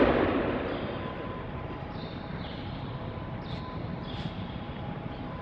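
The echo of a heavy thud dying away in a large hall during the first second, then steady hall background with recording hiss and a faint hum.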